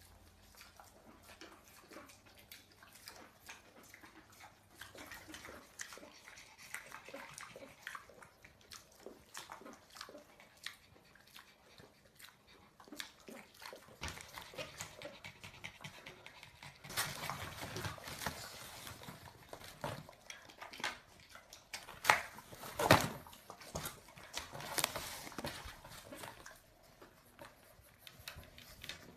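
Pet mini pigs and a pug making small animal noises around a table, with many short clicks and smacks throughout and a few louder bursts about three-quarters of the way in.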